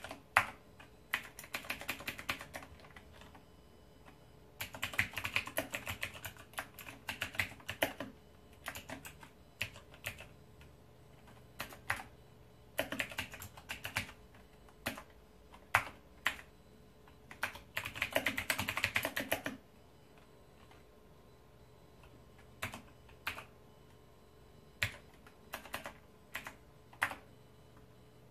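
Razer BlackWidow Ultimate mechanical keyboard being typed on: quick runs of keystrokes broken by pauses and single key presses, thinning out over the second half.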